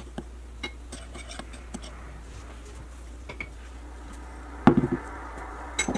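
A few faint clicks of a metal spoon against a ceramic bowl as dry seasonings are stirred, over a steady low hum. About three-quarters of the way through there is a single louder thump.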